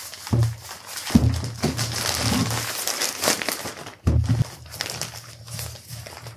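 Plastic zip-lock bag and a roll-top dry bag crinkling and rustling as gear is stuffed into the dry bag and its top is rolled shut, with a few dull bumps of handling.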